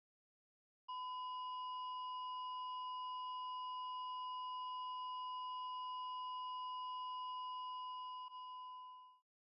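A steady electronic beep tone at one fixed pitch, held for about eight seconds and then fading out quickly.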